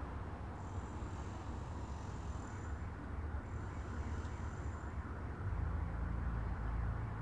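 Street ambience: a steady low rumble of road traffic and wind, which grows louder about five seconds in as a vehicle comes close.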